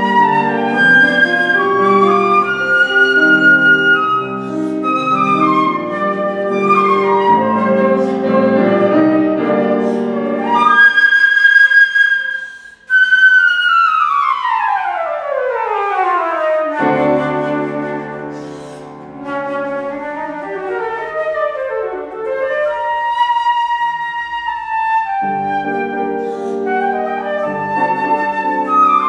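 Concert flute playing a Romantic melody over grand piano accompaniment. About halfway the piano drops out under a held high flute note, then the flute plays a long fast run sweeping downward before the piano comes back in.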